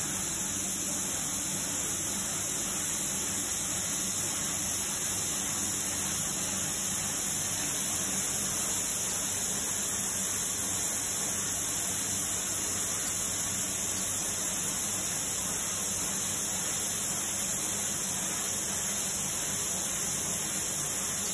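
Automatic bottle spray-coating machine running, its air spray guns hissing steadily as they atomise paint, with a steady low hum beneath.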